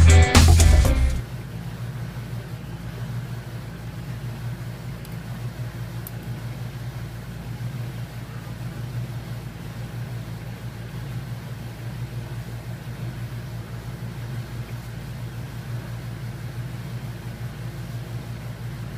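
Music cuts out about a second in, leaving a steady low machine hum.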